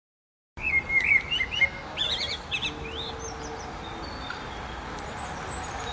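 Songbird chirping: a quick run of short, rising and falling chirps over the first few seconds, then steady faint outdoor background noise. The sound starts suddenly about half a second in.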